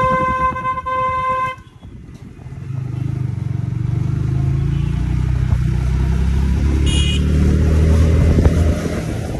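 A vehicle horn sounds one steady tone and cuts off after about a second and a half. Then the Yamaha R15 V3's single-cylinder engine picks up, its revs climbing steadily for several seconds as the motorcycle accelerates, and eases off near the end.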